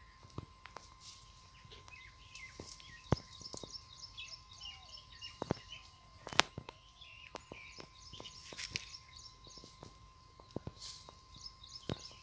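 Small birds chirping and twittering, with scattered sharp clicks and rustles of handling or movement in the undergrowth, two of them louder a third and a half of the way in. A faint steady high tone runs underneath.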